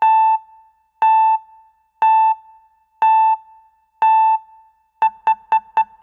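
Electronic beep at one steady pitch, five beeps about a second apart, then quickening to about four beeps a second for the last second.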